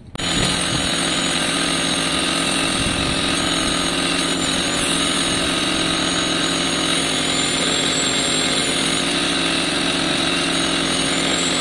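Dremel rotary tool with a cutting disc grinding through a motorcycle's rear frame rail: a steady, loud grinding with a high whine that wavers slightly in pitch as the disc bites.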